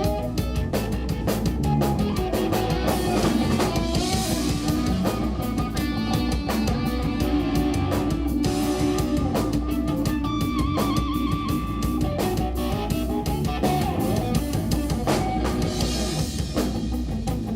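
Live instrumental rock-fusion band playing: electric guitar over bass and a busy drum kit, with a held guitar note bent in wide vibrato about ten seconds in.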